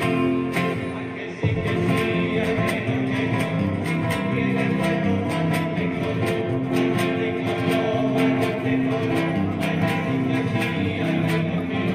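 Jota folk music for dancing, with guitars and other plucked strings playing a lively tune over sharp, evenly spaced clicks. The full band comes in about one and a half seconds in.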